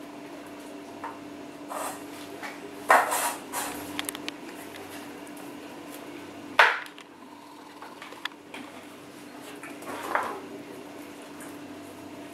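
Puppies playing on a tiled floor, bumping bowls: scattered knocks and clatters, the sharpest about three and six and a half seconds in, over a steady low hum.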